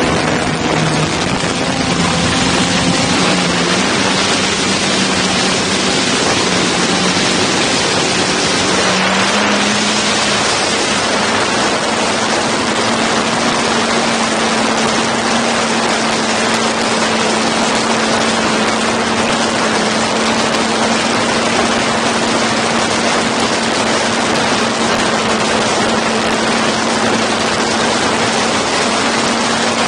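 DJI Mavic 2 Zoom quadcopter's electric motors and propellers whirring, heard from directly beneath the rotors: a loud, steady hum under heavy hiss. The hum shifts in pitch during the first few seconds, then steps up a little about ten seconds in and holds steady.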